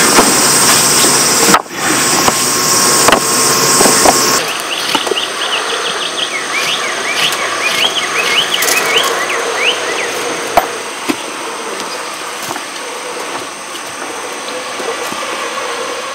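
Construction machinery running steadily, loudest for the first four seconds, then dropping to a quieter steady run. In the quieter part, a run of short, high, rising chirps comes over it for about five seconds.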